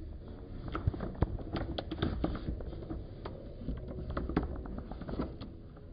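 Clear plastic bags crinkling and rustling as a hand handles them inside a metal keg: a run of irregular small crackles and clicks that thins out near the end.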